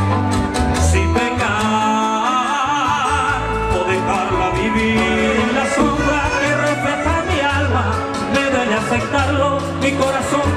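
Live vallenato band music over a loud sound system: an instrumental passage between sung verses, with wavering melody lines above a pulsing bass.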